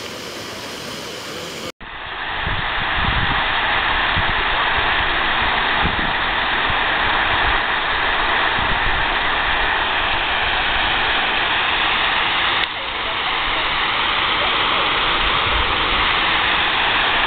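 A jet fountain splashing, cut off suddenly about two seconds in by a louder, steady rush of water cascading down a wall fountain and splashing into its pool. Low rumbles of wind on the microphone run under the water.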